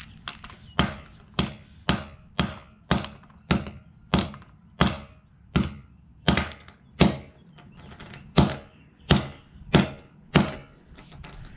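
Claw hammer repeatedly striking a small plastic Bluetooth speaker on a concrete floor, smashing it. About fifteen sharp blows, roughly one every half second or so, with a brief pause a little past the middle.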